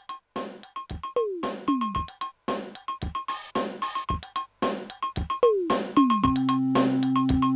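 Electronic background music: a steady drum-machine beat under a synth keyboard line, with two falling pitch swoops, and a held low synth chord coming in near the end.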